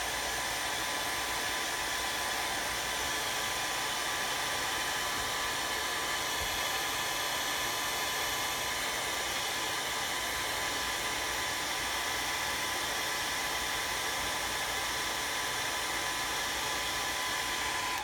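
Handheld hot-air dryer blowing steadily, drying freshly applied glue on a journal cover; it cuts off at the very end.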